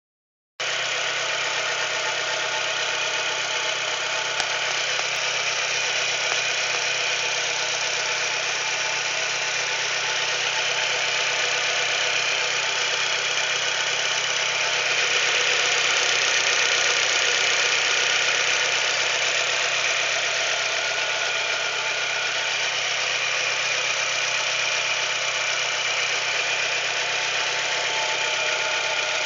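Chevrolet Celta's four-cylinder engine running steadily with an abnormal noise, which the owner suspects is a piston.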